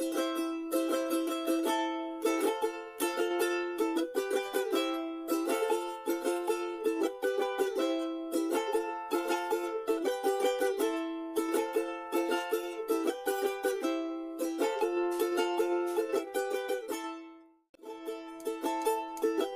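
Charango music: fast strummed and plucked chords on the small Andean string instrument. It fades out for a moment near the end and starts again.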